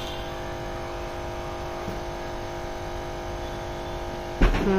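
Steady room hum from a running motor or appliance, made of several constant tones. A low thump about four seconds in, just before a voice starts.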